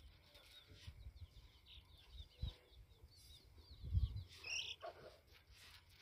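Many short, high bird chirps, with a louder call a little past halfway. Under them, a couple of dull low thumps and a soft rustle from a hand stirring dry bran feed in a metal pan.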